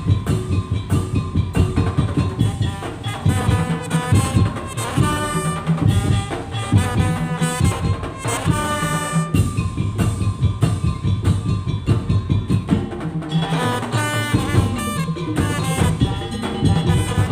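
Madurese tong-tong (daul) ensemble playing: a dense, driving drum and percussion rhythm under a held wind-instrument melody.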